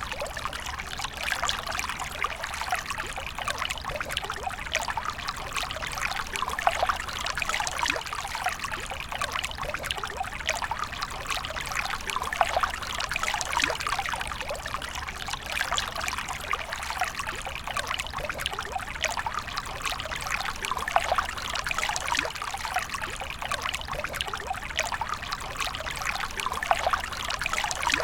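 Water flowing and trickling steadily, a continuous run of small splashes with no break, over a faint low hum.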